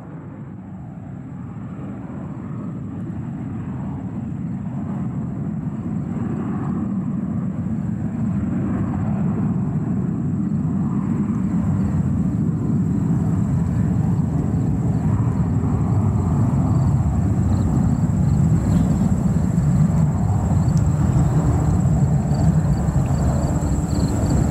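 Jet engines of a taxiing Boeing 747-400: a low, steady rumble that grows gradually louder over the first two-thirds as the jet draws nearer, then holds.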